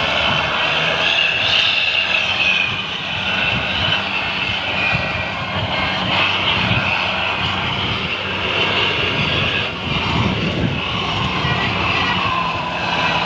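Steady road drone of engines and rushing wind on the microphone while riding close behind a bus on the road.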